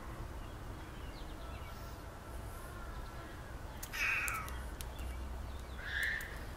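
Steady low background rumble with two short animal calls, about four and six seconds in.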